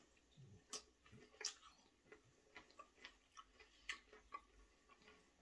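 Faint, irregular clicks and crunches of someone chewing a slice of lightly salted zucchini.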